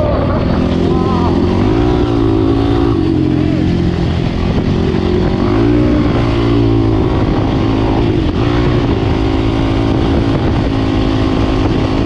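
Off-road vehicle engine running while riding, its pitch dipping and climbing again twice as the throttle changes.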